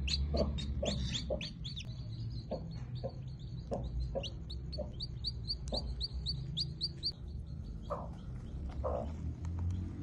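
Newly hatched chicks peeping: a quick run of short, high, downward-sliding cheeps, about three a second, thinning out after about seven seconds, over a low rumble.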